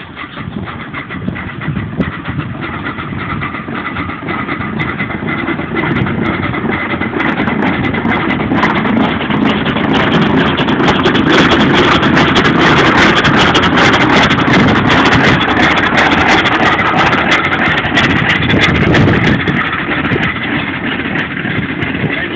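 The Coffee Pot, a small vertical-boiler steam locomotive, working with a steady noisy hiss and chuffing. It grows louder over the first ten seconds or so and eases slightly near the end.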